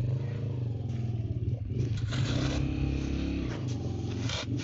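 An engine running steadily, its pitch shifting a little about three and a half seconds in, with short scraping noises over it around the middle and near the end.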